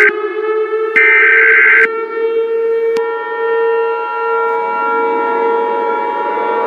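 Emergency Alert System tones: the screeching digital header bursts sound twice in the first two seconds over a siren winding up. About three seconds in, the steady two-tone EAS attention signal begins and holds under the siren, announcing an alert message.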